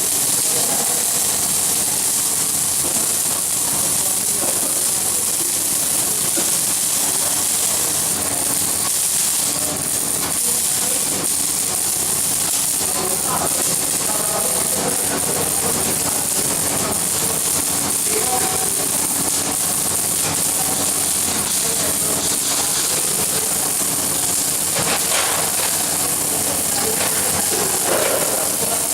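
Steady hiss of an electric welding arc, held at an even level throughout.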